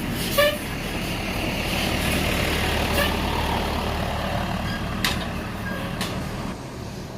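A large bus's engine running as it passes, with a short horn blast about half a second in and a brief second toot around three seconds in. Two sharp clicks come near the end.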